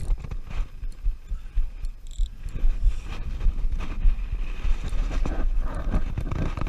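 Wind buffeting the microphone as an uneven low rumble, with scattered short knocks.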